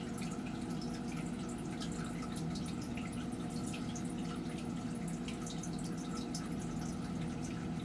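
Water dripping in light, irregular ticks over a steady low hum.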